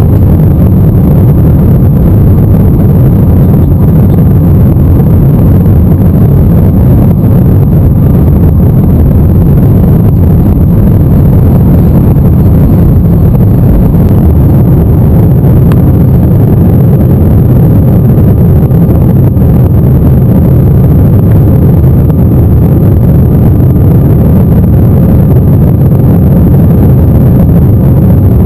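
Airbus A319 cabin noise during takeoff: the jet engines at takeoff thrust and the airliner rolling down the runway and climbing away. It is a loud, steady low rumble throughout.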